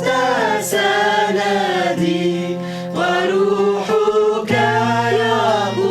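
A group of voices singing an Arabic Christian worship hymn together in slow, drawn-out phrases, over steady held accompaniment notes that change chord every couple of seconds.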